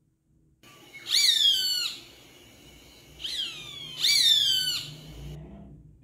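A hawk calling three times: shrill screams that each slide down steeply in pitch. The first comes about a second in, and the other two follow close together a couple of seconds later.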